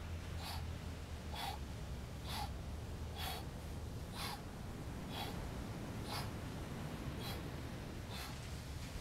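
A man breathing out sharply in a steady rhythm, about one forceful exhale a second, in time with hard punching reps on suspension straps. A low steady rumble runs underneath.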